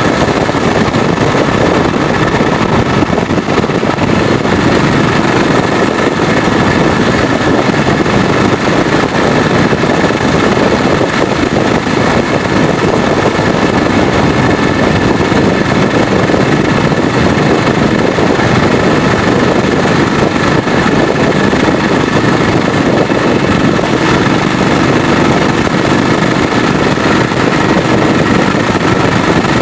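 BSA 441 single-cylinder four-stroke motorcycle engine running steadily as the bike is ridden along the road, under a dense, even rush of wind and road noise.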